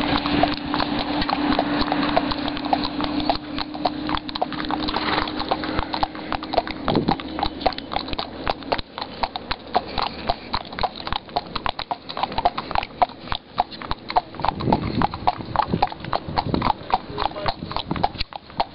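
Horses' hooves clip-clopping on a paved road, a quick steady rhythm of hoof strikes from the ridden horse and the others close by. A steady low hum runs under the first half.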